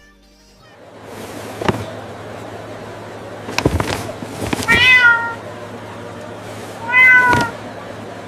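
A cat meows twice, about five and about seven seconds in, over a steady background hiss with a few sharp knocks before the first meow.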